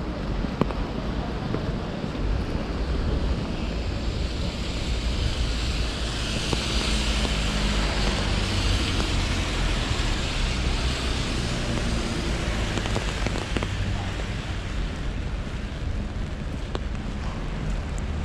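Wet-street ambience in the rain: wind rumbling on the microphone over a steady wash of rain, with the hiss of a car's tyres on the wet road swelling and fading around the middle.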